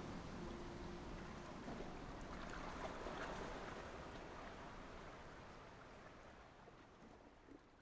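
Closing bars of an ambient music track: a soft, hissing wash with a few faint held tones in the first second, slowly fading out.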